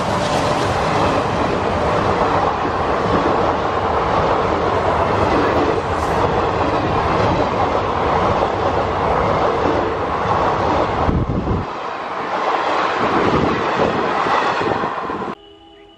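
Passenger coaches of an express train passing close by at speed: a loud rushing rumble with the wheels clattering rapidly over the rail joints. The deep rumble thins out late on and the sound cuts off abruptly near the end to a quiet steady hum.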